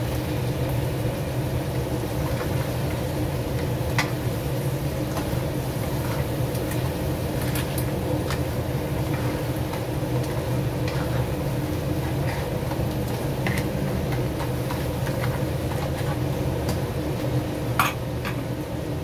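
Mantis shrimp and crabs being turned and stirred with tongs and a spatula in a frying pan, the utensils clacking against the pan now and then: a sharp clack about four seconds in and another near the end. A steady low machine hum runs underneath.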